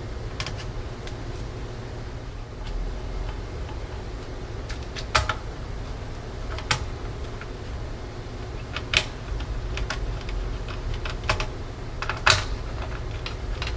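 Scattered small clicks and taps of parts and tools being handled while a laptop is put back together, over a steady low hum.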